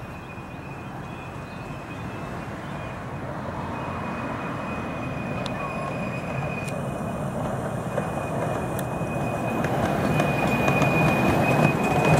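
Miniature railway steam locomotive hauling passenger carriages along the track, getting steadily louder as it approaches and passes close by near the end. A thin, steady high whine runs through it.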